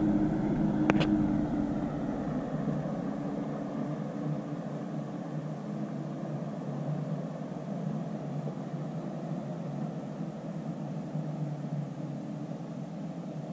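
Heavy delivery truck's engine running and fading as it drives away, leaving a fainter steady rumble, with one sharp click about a second in.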